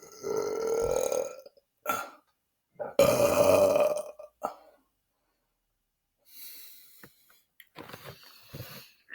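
A man belching: two long, loud burps of about a second each, the first rising in pitch, with short burps after each. It goes quieter after about six seconds.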